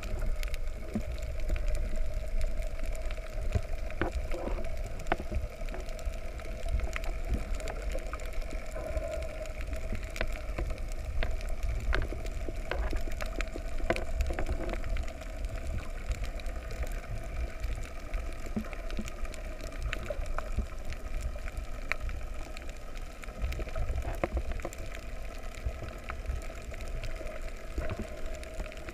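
Underwater ambience picked up by a submerged camera: a low rumble of moving water with scattered clicks and crackles, over a faint steady hum.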